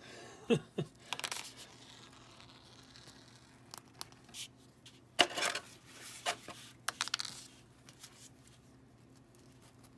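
Handling noise of a plastic action figure and its small rubber sticks: scattered light clicks, taps and brief rustles as the sticks are worked into the figure's hands.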